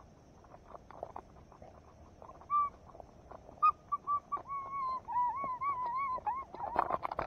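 Faint footsteps on grass, then from about two and a half seconds in a series of short, clear whistled calls. The later notes each rise and fall, about three a second.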